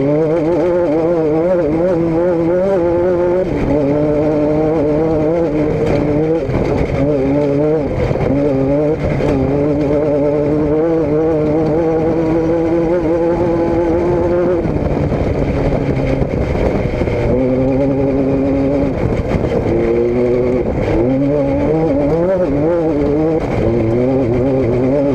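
Motor vehicle engine running steadily and loudly under way, its pitch stepping up and down several times.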